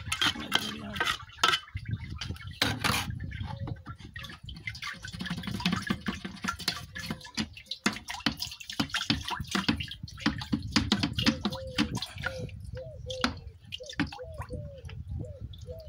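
Metal trowel scraping and scooping wet fermented bitter-orange pulp in a metal basin, with juice sloshing and dripping as the pulp is worked and the basin is tipped.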